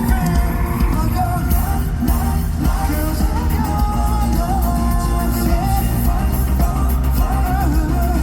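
Loud pop-rock music over a concert sound system, with a voice singing a wavering melody over it.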